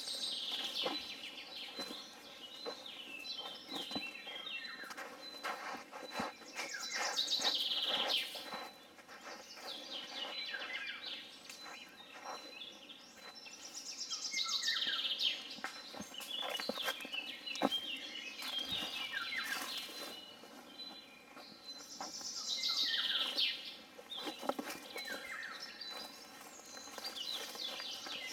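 Birdsong outdoors: a songbird repeating a loud, high phrase that falls in pitch, about every seven to eight seconds, with smaller falling chirps from other birds in between.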